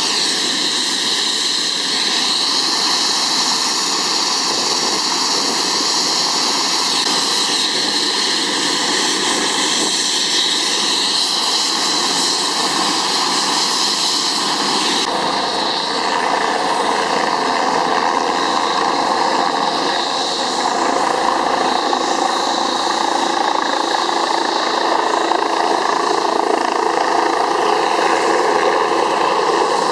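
Helicopter turbine engines and rotor running loudly and steadily. The sound shifts abruptly a few times, about a quarter, half and two-thirds of the way through.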